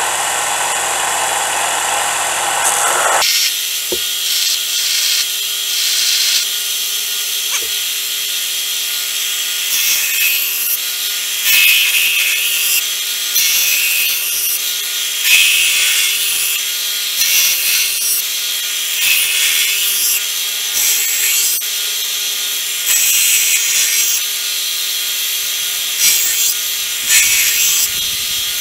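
Belt grinder running with a steady motor hum as a steel knife blade, forged from a recycled pry bar, is pressed to the old belt in repeated hissing passes to grind off forge scale. The passes start about ten seconds in.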